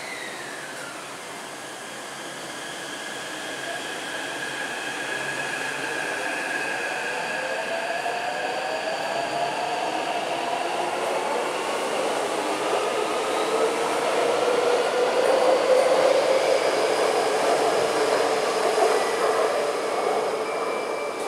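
Taipei Metro C381 train with a software-modified traction inverter pulling out of an underground station. The motor whine climbs in pitch through several tones as it accelerates, over a rush of wheel noise that grows louder to a peak about three-quarters of the way through, then fades as the train goes into the tunnel.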